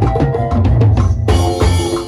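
Live band music driven by drums: congas and a drum kit over a strong bass line, with electric guitar notes and a cymbal crash a little after halfway through.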